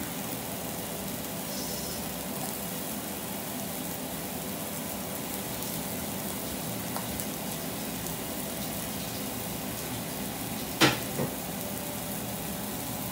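Steaks and mushrooms sizzling steadily in a grill pan on an electric hob, with an extractor fan humming under it. A single sharp clack comes about eleven seconds in, followed by a fainter one.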